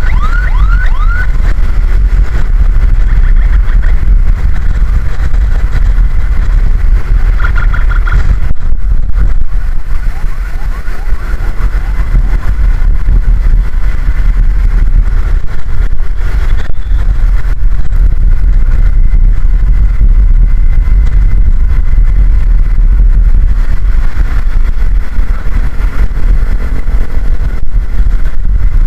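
Loud steady low rumble of a vehicle on the move. An ambulance's electronic siren yelps in fast rising sweeps in the first second or so and again briefly about seven seconds in, sounding only in short spells that cut off.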